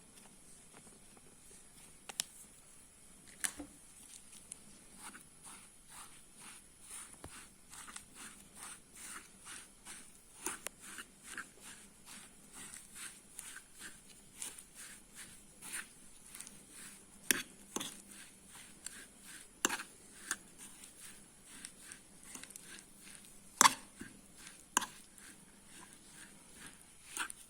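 Kitchen utensil clicking and tapping against a bowl or board, about two light taps a second, with a few louder sharp knocks.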